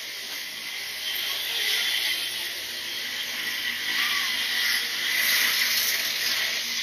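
Motorcycle riding slowly through traffic on a wet road: a steady hiss of tyres, wind and rain over the bike-mounted microphone, with a faint high engine whine.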